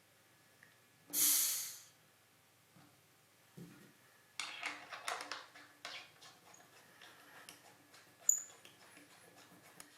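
A short hiss of air, about a second in and lasting under a second, typical of air drawn through the vacuum valve of an underwater housing's leak detector. About four seconds in, a few seconds of small clicks and handling noises follow, with one sharp click near the end.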